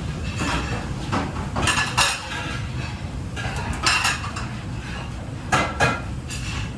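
Cutlery and utensils clinking against plates and dishes: about half a dozen sharp, briefly ringing clinks, three of them close together near the end, over a steady low hum.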